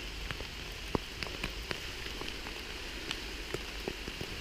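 Steady rain falling in woodland, with single drops ticking sharply and irregularly close by, about a dozen times.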